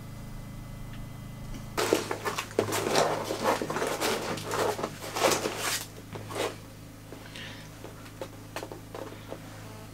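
PVC waterproofing foil crackling and rustling as hands press and smooth it, in a dense run of crinkles lasting about four seconds, then a few scattered clicks. A steady low hum runs underneath.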